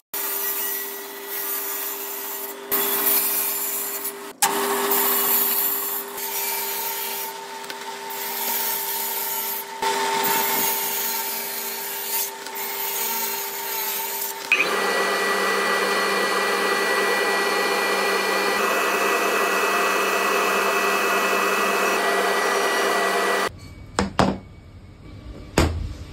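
Table saw with a circular blade cutting through a paper-covered acrylic sheet: a steady motor and blade whine under a rasping cutting noise that rises and falls as the sheet is fed through. The sound changes abruptly about halfway, cuts off suddenly near the end, and a few sharp clicks follow.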